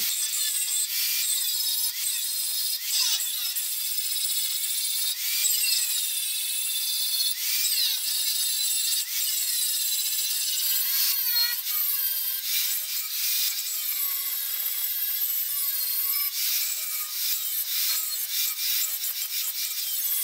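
Angle grinder with an abrasive disc grinding broken cast iron, prepping the joint for welding. Its high-pitched whine dips and rises as the disc bites into the metal and eases off, with a steady grinding rasp.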